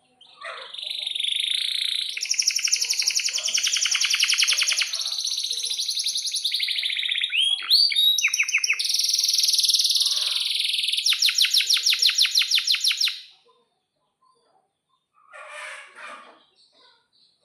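Domestic canary singing one long unbroken song of fast rolling trills and whistled notes, stopping about 13 seconds in. A couple of short, fainter sounds follow near the end.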